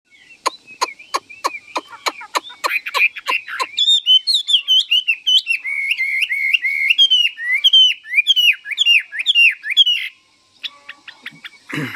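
A songbird singing: a run of sharp clicking calls, about three or four a second, then a fast string of repeated high chirps that stops abruptly about ten seconds in.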